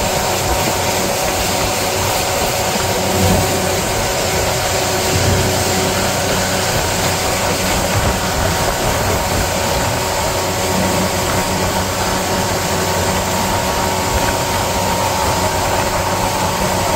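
A small boat's engine running steadily while the boat is under way, with a steady hum over a constant rushing of wind and water.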